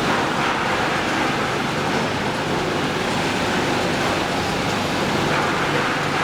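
Automatic 5-gallon bottle outer-brushing washing machine running: a steady, even mechanical noise with a low hum and no sudden knocks.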